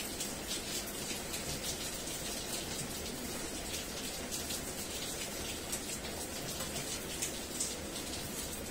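Heavy rain falling steadily, with many separate drops splashing close by.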